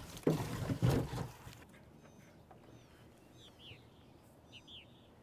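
Small birds chirping: a few short, downward-sliding chirps over quiet open-air background. Two brief louder noises come in the first second, before the background drops.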